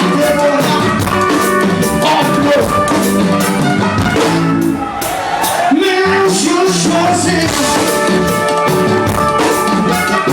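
A forró band playing live music with a steady drum beat, bass and a melodic voice line.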